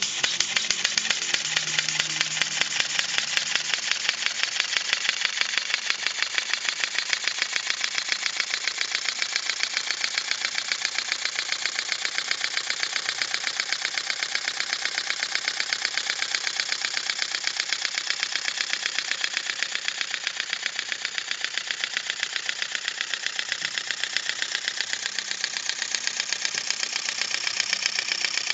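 Model Comber rotary engine running on compressed air: a rapid, even chuffing of exhaust puffs over a steady hiss of escaping air.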